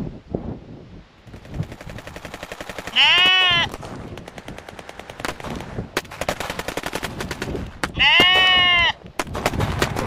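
Sheep bleating twice, each call under a second long and rising then falling in pitch, over a rapid run of clicking.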